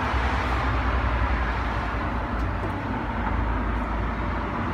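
Road traffic noise: a steady low rumble of vehicles on the street.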